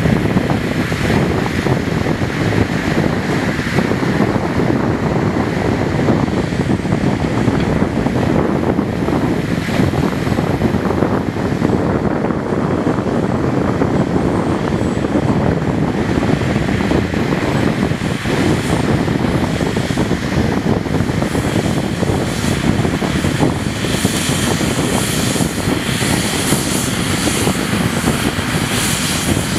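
Diesel engine of a Volvo articulated dump truck running steadily as it tips sand from its raised bed, then drives past; a hissier edge joins in the last several seconds.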